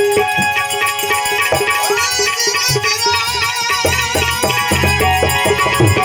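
Instrumental break in a Gujarati santvani folk bhajan: hand-drum strokes, several with a low bass note that bends downward, under a sustained melody with vibrato.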